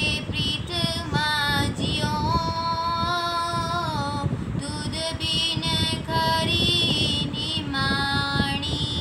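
A girl singing a Sikh shabad (a Gurbani hymn) in long held notes that glide gently in pitch, with short pauses for breath between phrases.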